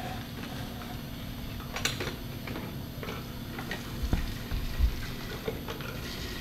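Scattered light clicks and knocks over a steady low hum, with two dull thumps about four and five seconds in.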